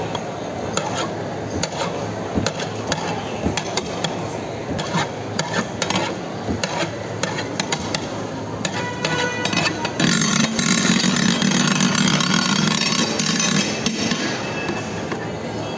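A long metal ice cream paddle knocking and scraping against the inside of a stainless steel freezer well as thick ice cream is worked, in many quick clanks and scrapes. About ten seconds in, a louder steady hum joins and runs on for several seconds.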